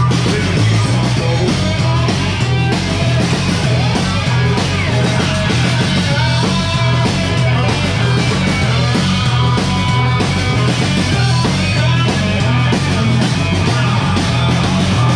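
Loud rock music with guitar and a steady, pulsing beat.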